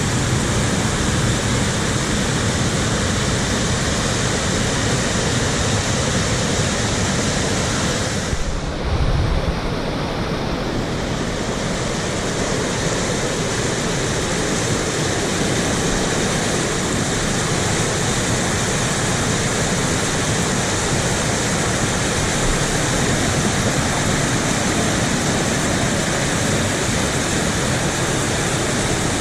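River water rushing steadily over waterfalls and rapids. About eight seconds in the sound briefly dulls and a low rumble swells for a second or two before the steady rushing returns.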